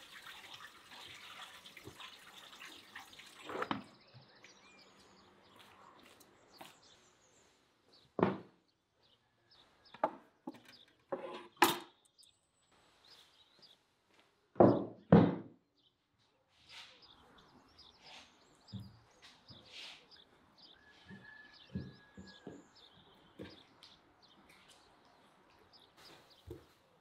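Water running from a tap into a plastic basin as raw oxtails are rinsed, stopping a few seconds in. Later come sharp wooden knocks, the loudest a pair about half a second apart as a wooden cutting board is set down on a wooden table, and softer knocks as the oxtails are laid on the board.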